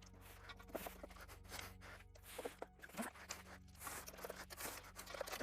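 Scattered small clicks, taps and scrapes of engine parts being handled and set down during the teardown of a Chevy 350 small-block, over a faint steady low hum.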